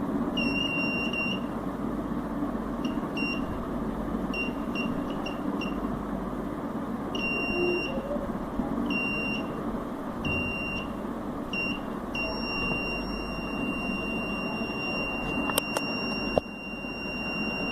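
Piezo buzzer of a homemade laser tripwire alarm sounding a single high-pitched tone, first in irregular short beeps of varying length and then held continuously from about twelve seconds in; it sounds whenever the laser beam on the light sensor is blocked.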